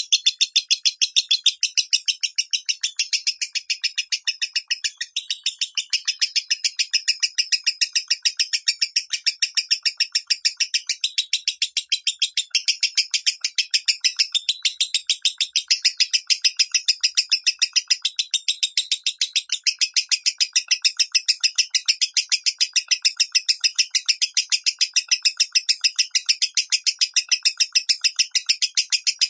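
Lovebird singing its 'minor' voice: a long, unbroken run of rapid high chirps at about five a second.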